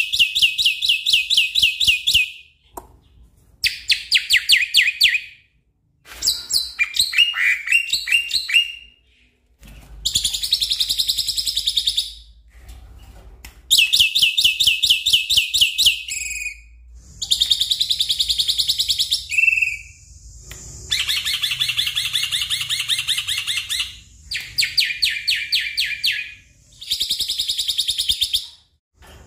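Black-winged myna (jalak putih) singing loudly: about nine phrases of two to three seconds each, every one a fast string of rapidly repeated high notes, with short pauses between phrases.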